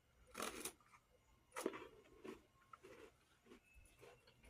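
A few short, faint crunches of a thin vanilla-cream wafer being bitten and chewed, the loudest about half a second and a second and a half in, with smaller crackles after.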